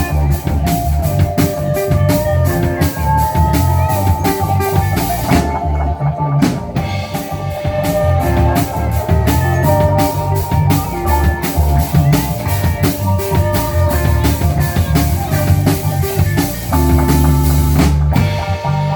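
Rock band playing a song: drum kit keeping a steady, fast cymbal beat over guitar and bass. The cymbals drop out briefly about six seconds in and again just before the end.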